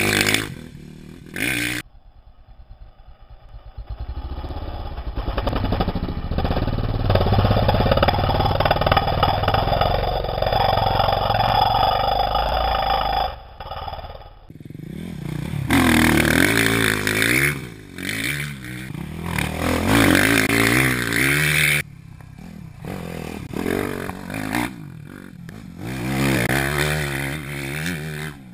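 Motocross dirt bikes revving hard as they ride past on a dirt track, the engine pitch rising with throttle and dropping at gear changes. The first half has one long, rising pull; after a sudden break, several wavering revving passes follow.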